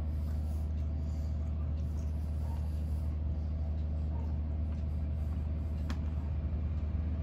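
A steady low hum runs under faint mouth sounds of chewing cake, with a single light click about six seconds in.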